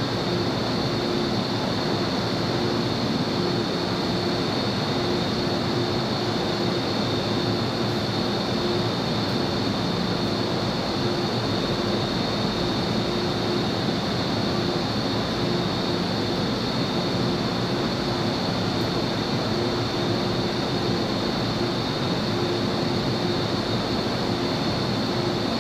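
Steady station-platform ambience: an even, unchanging background noise with a constant high-pitched whine running through it.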